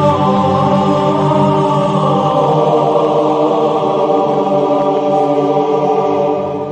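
Group chanting of voices, a choir-like chant with long held notes that shift pitch only slightly.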